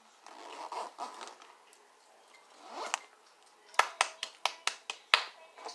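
Crinkly plastic chip bag rustled by hand, then a quick run of about eight sharp clicks or taps, roughly four a second, near the end.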